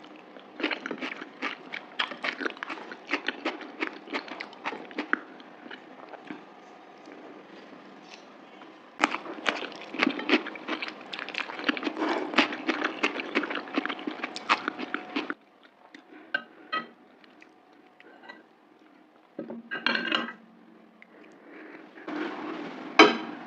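Close-up eating sounds of mutton curry and rice: chewing and mouth sounds with many quick clicks and clinks against the plate. There are two long busy stretches, then a quieter pause broken by a couple of short bursts near the end.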